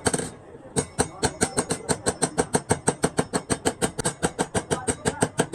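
Rapid, evenly spaced hammer blows on metal, about six a second, each with a short high ring.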